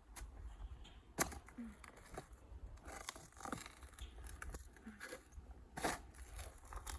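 Roots being pulled and torn out of garden soil: scattered crackling and scraping, with two sharper snaps, one about a second in and one about six seconds in.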